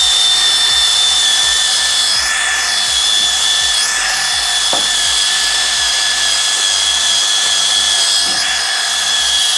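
Electric drill running steadily with a high whine, spinning the oil pump drive of a rebuilt Volvo B230 redblock engine through a socket and extension to prime it and build oil pressure.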